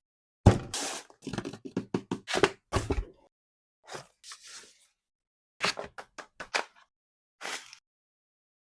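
Cardboard keyboard box and its packaging being handled and opened: a series of sharp knocks, taps and thunks in quick clusters, with a few short scraping or rustling slides.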